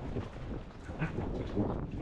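Wind buffeting the microphone, a steady low rumble, with faint voices in the background.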